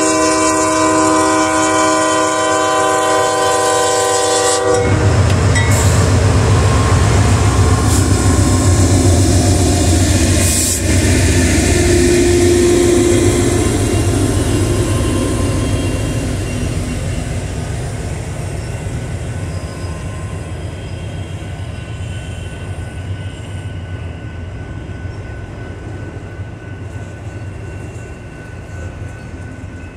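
CSX ES40DC diesel locomotive sounding its multi-note chord horn in one long blast that stops about five seconds in. The locomotive's engine then rumbles loudly as it passes, fading into the steady rumble and clatter of the train's cars rolling by.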